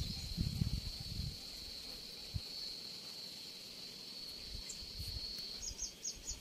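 A steady high-pitched insect drone that breaks off about five and a half seconds in into four short chirps. Low rustling handling noise sounds in the first second or so.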